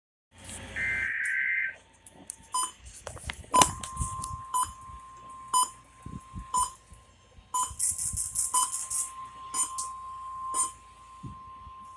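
NOAA Weather Radio alert audio: a short warbling SAME data-header burst about a second in, then the steady 1050 Hz weather alert tone from about three and a half seconds in. A click falls about once a second, with patches of high, fast rattling.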